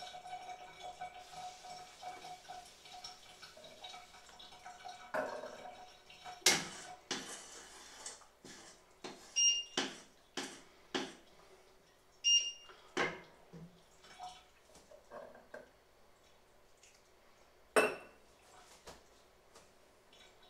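A metal utensil clanks and scrapes against a stainless steel cooking pot. A few seconds of faint liquid sounds come first, then a run of sharp clanks, some ringing briefly.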